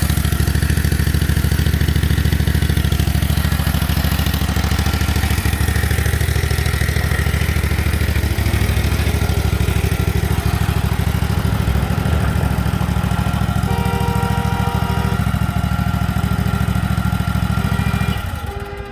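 Lay-Mor LB-30 backhoe's engine running steadily, then shut off about 18 seconds in, the sound dying away.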